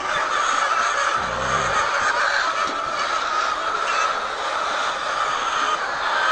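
A large flock of laying hens in a poultry house, a steady massed din of clucking and chattering, with a brief low bump about a second in.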